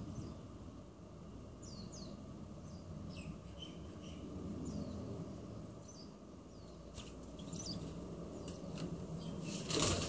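Small birds chirping in short, high, falling notes, then a sudden loud flurry of wingbeats near the end as zebra doves flap up off a person's hand and knee.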